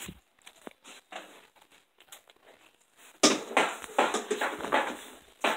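Handling noise on a hand-held phone: a few faint clicks, then about three seconds in a burst of loud rubbing and crackling rustles as the phone is moved and brushed against, ending with a short knock.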